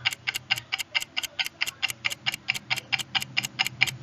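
Ticking-clock sound effect used as a quiz answer timer: steady, evenly spaced ticks, about four a second.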